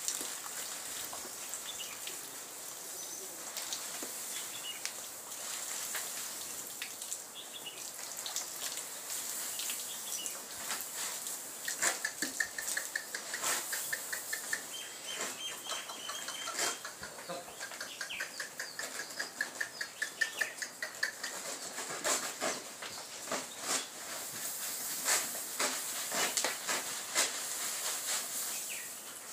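Dry cattle feed being shaken out of a woven plastic sack into a stone trough: a rustling hiss with scattered knocks and clicks. Birds chirp in a quick repeated series through the middle of it.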